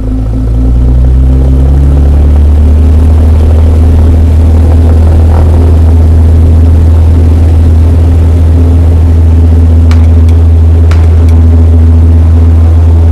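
A loud, steady low drone that swells in the first second, with a low tone gliding up in pitch into it over the first two seconds. A few faint clicks near the end.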